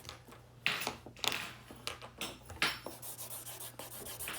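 Felt-tip marker rubbing across paper in several short, irregular strokes as a signature is written.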